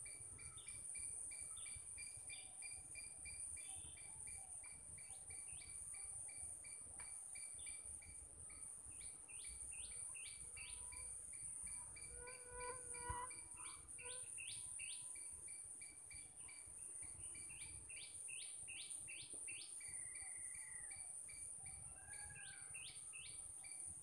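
Wild birds calling in a garden: several runs of quick, downward-sweeping chirps over a steady high-pitched insect drone and a regular ticking pulse. One sharp click about halfway through.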